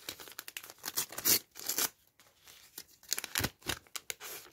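Paper wrapper of a Topps sticker pack being torn open and crinkled in several short ripping bursts as the stickers are pulled out.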